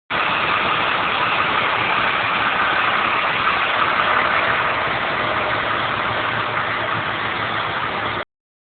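A motor vehicle engine running steadily at idle, heard as a constant rushing noise with a faint low hum, which cuts off abruptly near the end.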